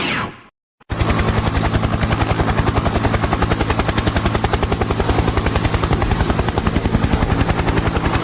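Helicopter rotor chopping at a fast, even beat over a steady low engine hum. It starts suddenly about a second in, after a brief silence, and cuts off just before the end.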